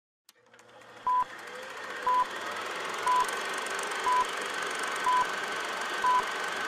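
Film-leader countdown sound effect: a short high beep once a second, six times, over a hiss with faint crackle that grows steadily louder.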